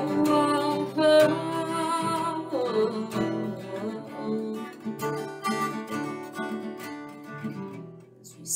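Acoustic guitar strummed steadily, with a woman's wordless singing over it in the first few seconds.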